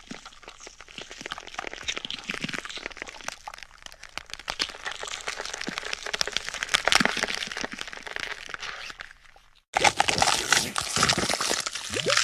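Gore-style sound effect: a dense run of small crackling, crunching snaps. After an abrupt cut near the end, a louder wet squelching effect takes over.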